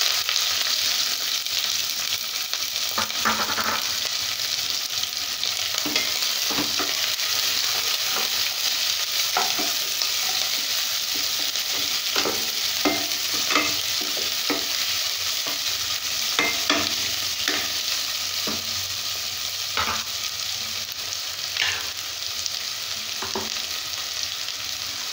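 Sliced onions frying in hot oil in a nonstick pot: a steady sizzle, with irregular scrapes and taps as a spatula stirs them. The sizzle eases a little toward the end.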